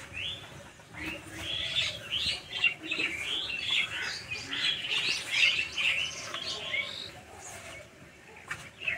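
Small birds chirping and twittering in a rapid, busy chatter, thickest through the middle seconds, with a short tap near the end.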